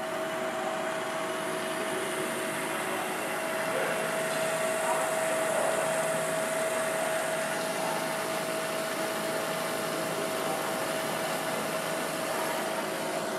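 Metalworking machine tool running under power: a steady mechanical noise with one constant whine.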